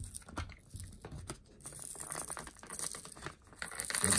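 Fingernails picking and peeling at a Hot Wheels blister card, tearing its paper layer and tape: irregular small scratches, clicks and crinkles of cardboard and plastic. The scratching gets busier about a second and a half in.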